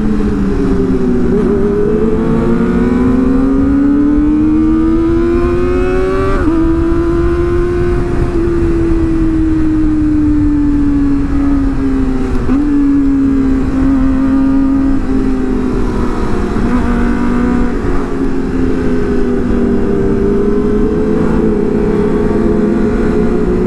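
Kawasaki ZX-25R inline-four engine running at high revs under way. Its pitch climbs for the first six seconds, then eases down and holds fairly steady. Wind noise on the microphone runs underneath.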